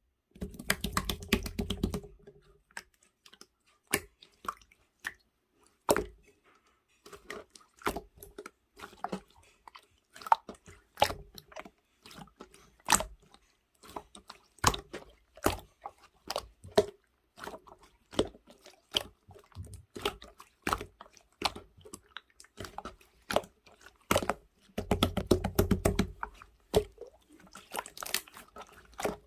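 Mint clear slime being squished and pressed by hand, giving scattered wet clicks, pops and squelches, with denser stretches of crackly squishing near the start and again near the end.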